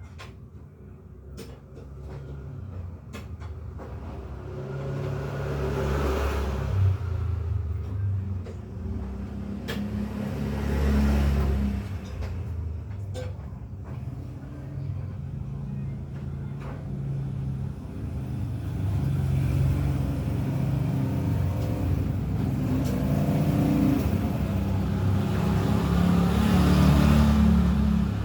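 Engine rumble of motor vehicles, swelling and fading several times as they pass, with a few sharp clicks in between.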